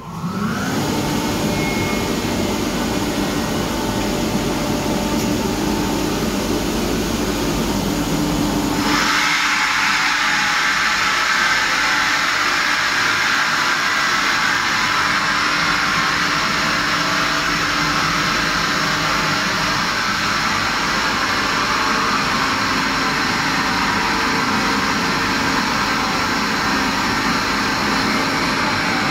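Kaeser ASK 35 rotary screw air compressor starting up: its motor runs up with a brief rising whine, then runs with a steady hum. About nine seconds in, the sound changes abruptly: the deep hum drops away and a steady, loud airy hiss takes over.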